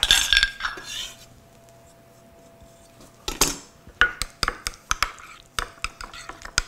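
Metal spoon scraping and clinking against a ceramic bowl while a horseradish cream of sour cream, horseradish and parsley is mixed. There is a scrape at the start, then a pause, then from about four seconds in a run of quick clinks, about three or four a second, as it is stirred.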